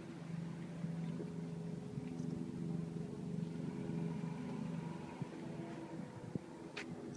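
An engine running with a steady low hum, growing a little louder through the middle and easing off near the end.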